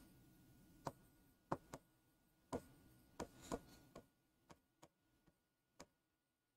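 Faint, irregular clicks of a stylus tip tapping on a screen during handwriting, about eight taps, most of them in the first four seconds, with near silence between them.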